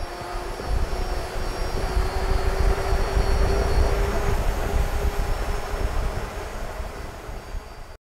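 Mercedes-Benz eActros battery-electric lorry driving past: tyre and road noise with a low rumble, and a steady electric-drive whine that rises slightly in pitch, loudest about halfway through, then fades. The sound cuts off suddenly near the end.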